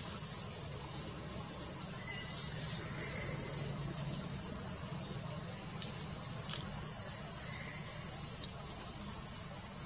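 Steady, high-pitched insect chorus droning without a break, with a brief louder burst of calling about two and a half seconds in.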